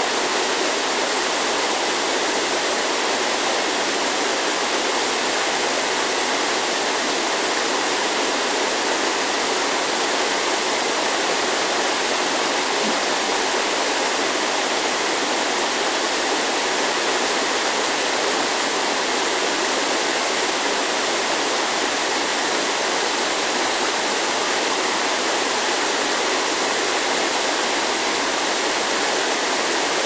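Small waterfall cascading in several streams over boulders into a pool: a steady, even rush of falling water.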